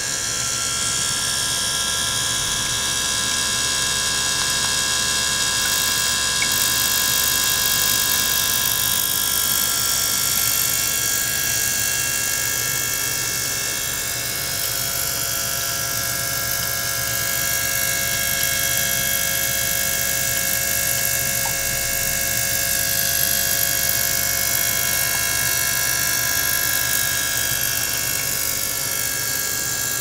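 Small water-circulation pump and ultrasonic transducer running in a water-filled jug. They make a steady high-pitched whine of many tones over a hiss. Some tones drift slowly in pitch, and the level gently swells and fades.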